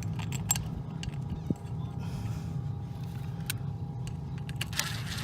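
Scattered light clicks and knocks of small metal parts and tools being handled while the oil filter cover is refitted, over a steady low hum.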